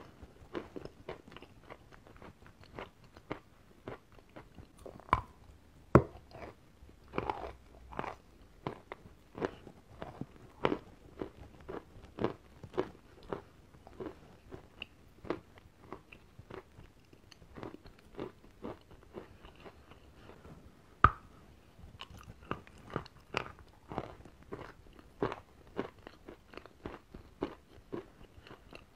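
Chewing a mouthful of white chalk: a run of dry, gritty crunches, about one or two a second. Two sharper, louder cracks stand out, one about five seconds in and another about twenty-one seconds in.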